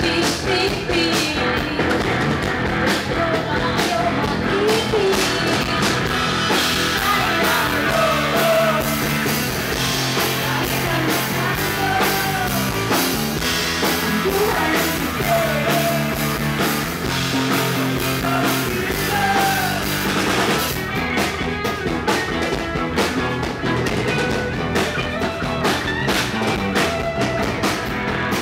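Rock band playing live: electric guitar, bass and drum kit, with a woman singing the lead melody. About twenty seconds in the cymbals drop back and the sound thins.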